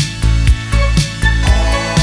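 Background music with a steady beat, drum hits about twice a second over bass and sustained instrument notes.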